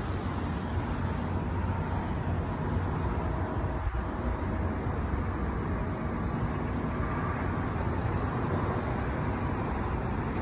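Steady roar of city traffic heard from a high-rise balcony, a low, even wash of road noise.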